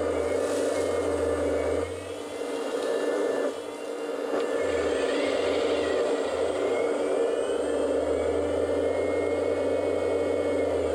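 Electric hydraulic pump of a 1/14-scale Kabolite 970 RC hydraulic excavator whirring steadily as the boom, arm and bucket work, its tone shifting with the valve action. The sound eases off briefly twice, about two and three and a half seconds in. Gravel spills from the bucket near the start.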